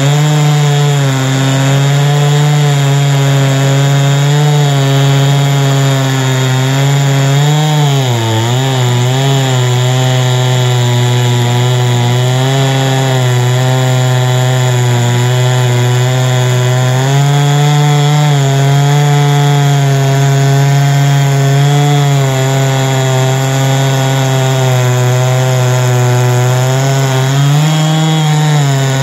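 Huztl MS660-clone two-stroke chainsaw running at full throttle under load while milling a cherry log. The engine note holds steady, sags briefly about eight seconds in as the chain bogs in the cut, then recovers.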